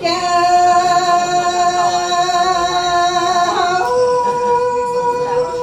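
A woman's voice singing lug txaj, the Hmong chanted poem-song. She holds one long note, then steps up to a higher held note about four seconds in.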